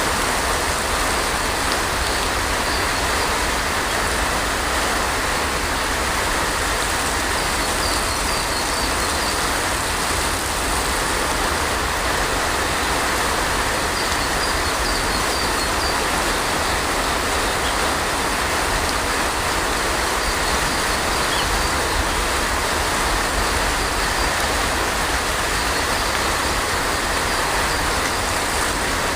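Steady heavy rain, an even hiss that does not let up.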